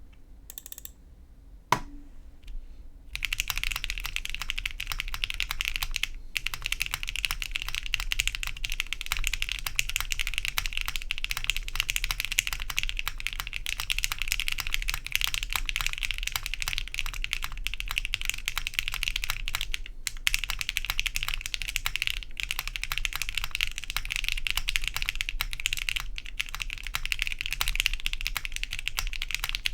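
Fast, continuous typing on a Hibiki custom mechanical keyboard with KTT Strawberry linear switches, a polycarbonate plate, gasket mounting, PBT keycaps and no foam dampening: a dense, higher-pitched, loud clacking. A single click comes just before the typing starts about three seconds in, and the typing breaks off briefly a few times.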